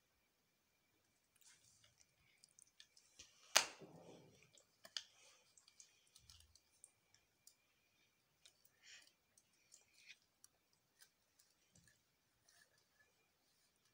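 Plastic Lego bricks and plates clicking and tapping as they are picked up and set down, with one sharper click about three and a half seconds in.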